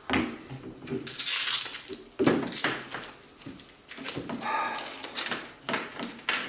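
Objects being handled and shifted by hand: irregular metallic clinks and knocks mixed with rustling and scraping swishes.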